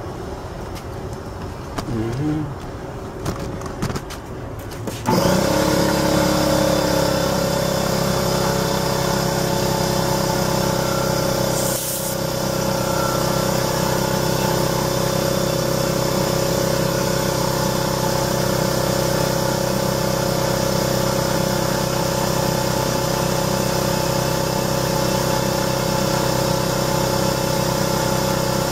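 Air compressor switching on about five seconds in and then running steadily, inflating a freshly plugged tyre through a hose on its valve stem. A short hiss of air about halfway through.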